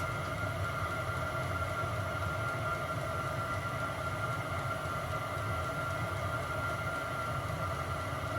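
VEVOR Chinese diesel air heater running steadily with its exhaust bypassing the heat exchanger: a steady whine over a low rumble. It runs fine this way, which points to the exhaust heat exchanger being clogged.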